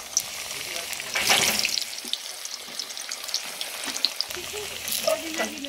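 Plantain slices frying in hot oil in an aluminium pot: a steady sizzle with fine crackling, briefly louder about a second in. This is the first fry, before the slices are pressed flat.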